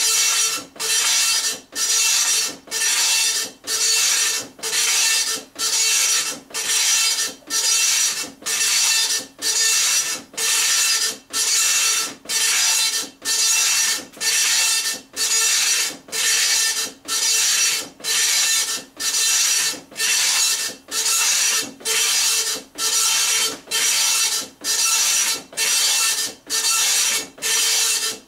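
Dot matrix printer printing line after line: each pass of the print head is a buzzing rasp of about half a second with a steady pitch, followed by a short gap, roughly three passes every two seconds.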